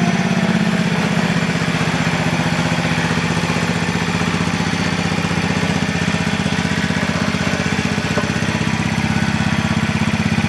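A small engine or motor running steadily at a constant speed, a low pitched drone with a fast even pulsing.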